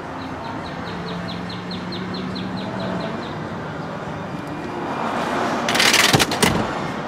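A bird chirping a quick run of short falling notes, about six a second, for the first three seconds. Near the end a loud clatter lasting about a second comes from the Sebring's manual passenger seat being tipped and sliding forward on its track.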